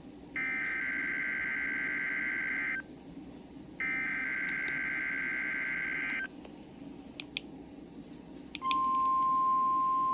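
NOAA Weather Radio SAME alert header: two warbling digital data bursts of about two and a half seconds each, a second apart, with a few faint clicks in the gaps. Near the end the steady 1050 Hz warning alarm tone starts, marking the weekly test activation.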